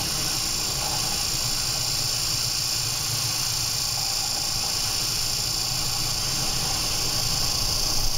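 Storm wind and heavy seas around a bulk carrier: a steady hiss with a low rumble underneath, growing a little louder near the end as a wave breaks over the bow.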